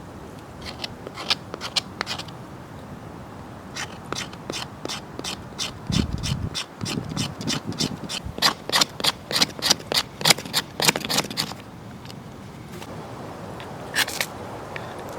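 A run of quick, rhythmic scraping strokes, about three a second, from a hand tool working on something hard, with a low thud about six seconds in.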